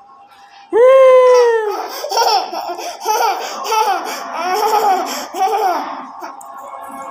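A one-year-old boy laughing loudly. It opens under a second in with a high squeal that falls in pitch, then runs on in repeated bursts of laughter about twice a second, which fade near the end.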